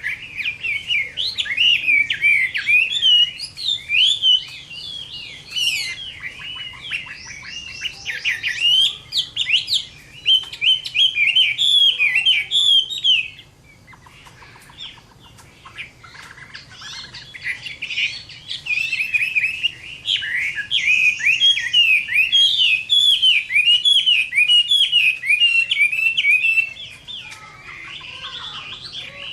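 Chinese hwamei singing its loud, rich fighting song: fast, varied whistled phrases poured out in long runs, with a short pause about halfway through before it starts again, then quieter towards the end.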